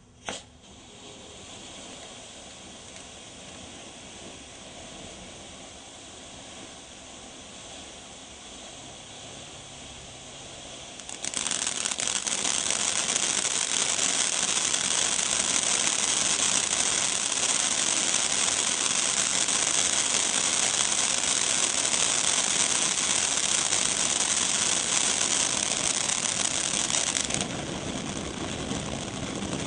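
A 500 g firework fountain burning: a sharp pop as it catches, then a steady hiss of sparks. About eleven seconds in it becomes much louder, with dense hissing and crackling, then eases back a little near the end.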